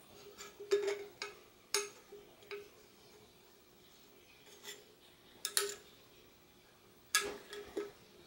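Irregular light metallic clicks and taps of a screwdriver knocking against the inside of a suspension fork's lower tube as grease is smeared onto the lower bushing, about eight of them with the loudest near the middle and near the end, over a faint steady hum.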